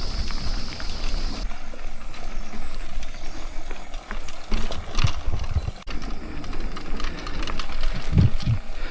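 Mountain bike being ridden along a dirt trail: tyres rolling and the bike and its strapped-on fishing rods rattling and knocking over bumps, with wind buffeting the microphone in low thumps. A high, steady insect buzz stops about a second and a half in.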